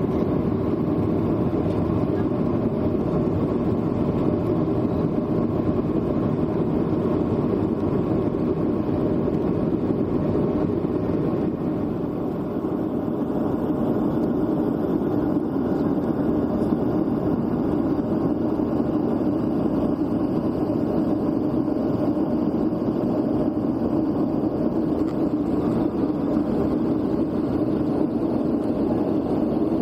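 Steady cabin noise inside a jet airliner in flight: a constant low drone of the engines and rushing air, easing slightly for a moment about twelve seconds in.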